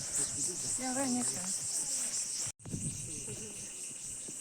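Steady, high-pitched chirring of insects in the surrounding vegetation, with a faint voice briefly about a second in. The sound cuts out abruptly for a split second about two and a half seconds in.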